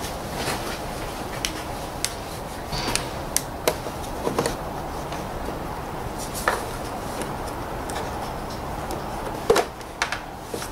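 Scattered light clicks and knocks of hands and a small tool working at the plastic air filter housing and its small hose fittings, over a steady hiss, with the loudest knock near the end.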